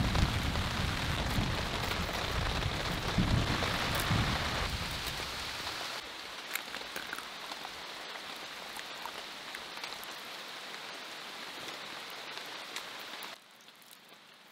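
Steady rain falling, with scattered drop ticks; it is heavy with a low rumble for the first few seconds, eases to a lighter patter about halfway through, and drops off sharply near the end.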